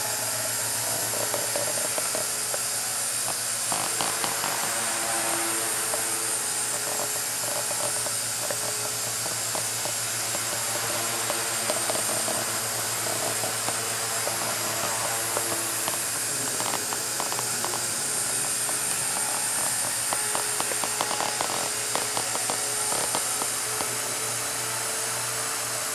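Walkera 4G6S radio-controlled micro helicopter in flight, its electric motor and rotors giving a steady whir with a thin, high, constant whine.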